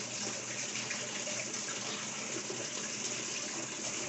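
Water running steadily into the tub of a Whirlpool commercial coin-op top-load washer through its inlet water valve, a continuous rushing hiss. This is the fill step of the washer's quick overview diagnostic test, and it shows the water valves are working.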